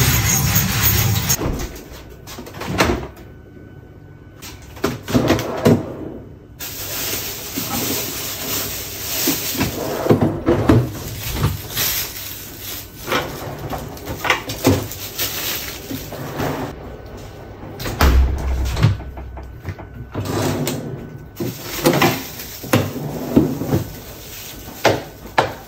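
Household handling sounds: a string of irregular knocks, clicks and clatters, with doors or cupboards opening and closing.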